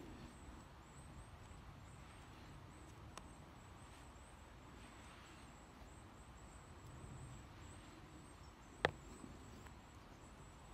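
Faint handling sounds of paracord being wrapped tightly around a knife handle, with one sharp click about nine seconds in.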